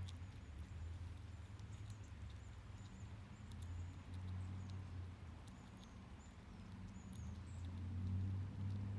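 Squirrel gnawing at a walnut: scattered small, sharp clicks and crunches of teeth on shell. Short high chirps of birds and a steady low hum sit underneath.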